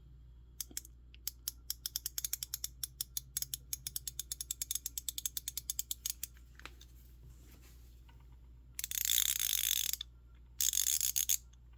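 A 90-tooth 3/8-inch ratchet clicking as its handle is swung, first at about eight clicks a second, then spun fast in short bursts so the clicks blur into a buzz. The clicks are light, with the ratchet showing light back drag.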